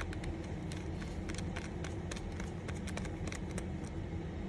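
Light irregular clicks of a Phillips screwdriver driving a small screw into a laptop's base, over a steady low background hum.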